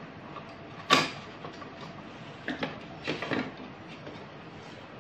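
Handling clicks and knocks of an inverter welding machine being worked on while its replacement cooling fan is fitted: one sharp click about a second in, then a cluster of smaller clicks and rattles around three seconds in.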